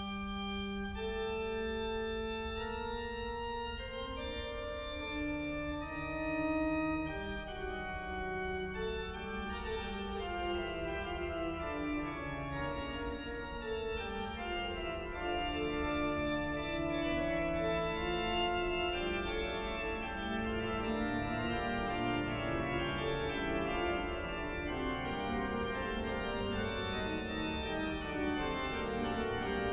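Organ played solo: held chords and a moving upper line over sustained bass notes, growing busier after the first several seconds.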